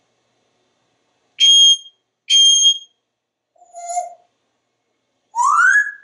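African grey parrot whistling: two high, steady, beep-like notes, a short lower note, then a rising whistle near the end.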